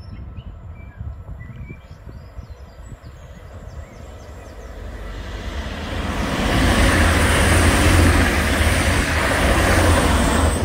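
TransPennine Express Class 185 diesel multiple unit approaching and passing at speed. A rushing roar of wheels and diesel engine builds from about four seconds in and is loudest over the last four seconds as the train goes by close up.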